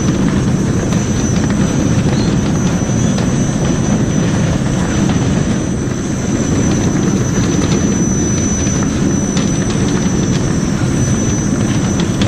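Semi truck's diesel engine idling, a steady rumble with a thin high whine over it.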